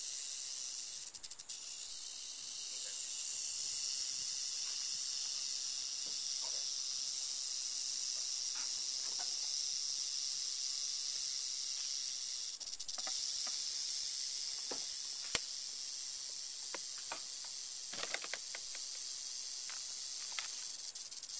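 Western diamondback rattlesnake rattling steadily, a continuous high buzz that breaks off briefly about a second in and again around the middle: the snake's defensive warning display.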